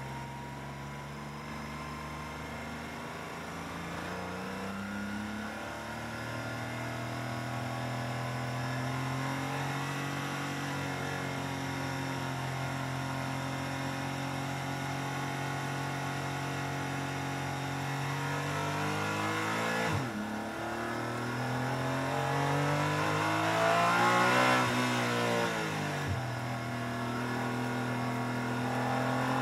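Porsche 718 Cayman GT4 Clubsport's flat-six engine, heard from inside the cabin. It runs steadily at low revs in first gear, then accelerates, with revs climbing and two quick upshifts, one about two-thirds through and one near the end.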